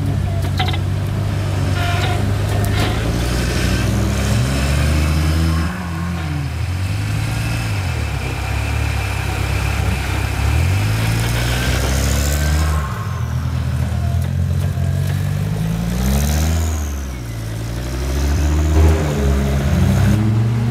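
Turbocharged Volvo engine of a 4x4 off-road buggy working under load. Its pitch climbs and drops over and over, every few seconds, as the throttle is worked, and a faint high rising whistle comes in around the middle.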